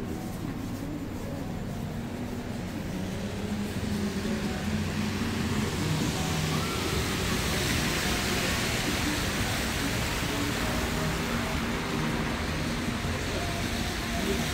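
City street traffic on a snowy road: a steady hiss of passing cars that grows louder a few seconds in.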